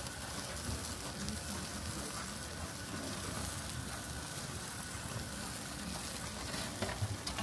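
Chicken yakitori skewers sizzling over a gas-fired grill: a steady, even hiss.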